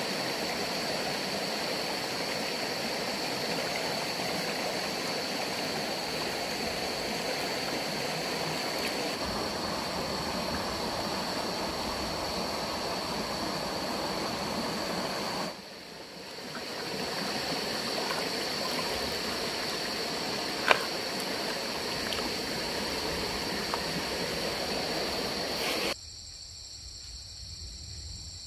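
Shallow stream water running steadily over gravel, with a steady high chirring of night insects above it. A single sharp click sounds about two-thirds of the way through. Near the end the water sound drops away, leaving the quieter insect chirring.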